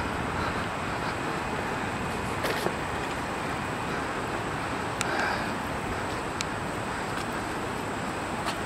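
Steady outdoor background of distant city traffic, with a few faint clicks.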